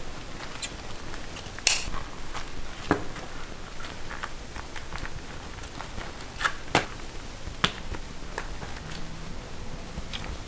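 Irregular clicks and knocks of hands and tools at a candy-making work table, the loudest a short sharp crack about two seconds in, with a few more knocks later on.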